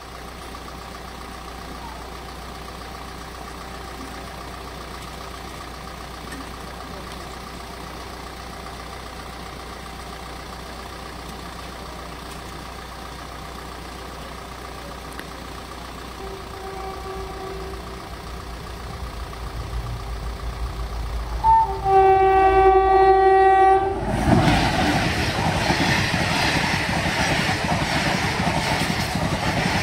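An approaching electric passenger train sounds its horn, a short toot and then a blast of about two seconds. The train then runs past a level crossing close by, a loud rush and rattle of coaches and wheels on the track, with the noise growing in the seconds before the horn.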